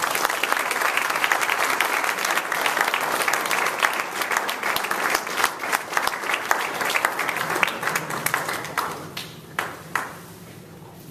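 Audience applauding, starting abruptly as a dense patter of clapping, then thinning to a few last separate claps about nine to ten seconds in.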